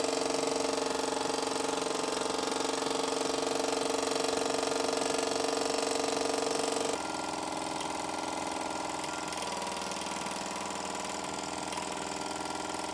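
Mamod model steam tractor's small steam engine running at a steady fast speed. About seven seconds in the sound drops abruptly in level and changes character.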